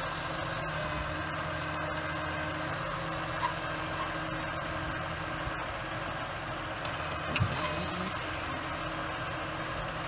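Peterbilt 357 log truck's diesel engine running steadily, powering the Prentice self-loader's hydraulics while the grapple swings a log onto the load. Two short clunks, the louder one about three-quarters of the way through.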